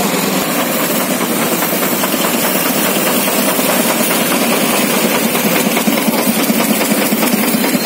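Engine of a truck-mounted disinfectant sprayer running steadily with a fast, even pulse, pumping disinfectant out through a hand-held hose.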